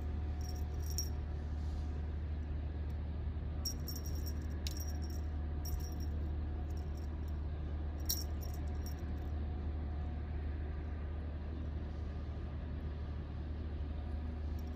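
A steady low machine hum with a faint steady whine, and a few light metallic clicks and jingles about a second in, between about four and six seconds, and once about eight seconds in.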